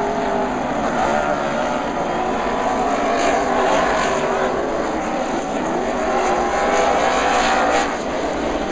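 Several NASCAR Cup stock cars' V8 engines running on pit road at once, their overlapping pitches shifting up and down as the cars pull in and out of their pit stalls.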